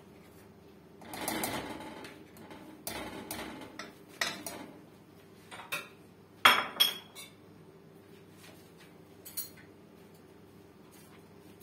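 Scattered knocks and clatter of things being handled in a kitchen, the loudest pair about six and a half seconds in, over a steady low hum.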